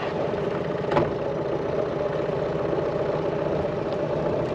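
Boat's outboard motor running steadily, with a single click about a second in.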